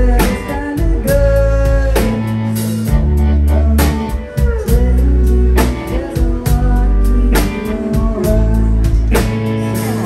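A live alt-country band playing: electric guitars over bass and a drum kit keeping a steady beat.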